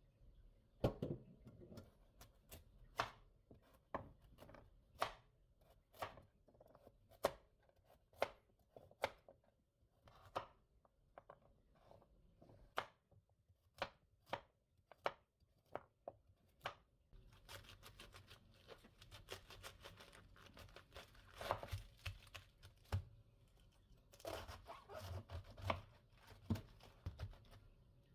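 Kitchen knife chopping on a cutting board: slow, evenly spaced single cuts about one a second, turning into quicker, busier cutting and handling in the second half.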